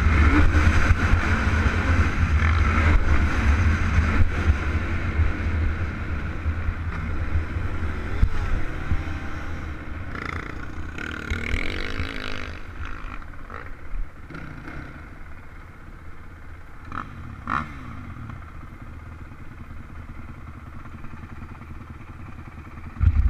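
Stock Honda TRX450R ATV's single-cylinder four-stroke engine running under the rider on a dirt track, the revs rising and falling. It is loudest in the first several seconds, then settles to a quieter, steadier low-speed run as the quad slows.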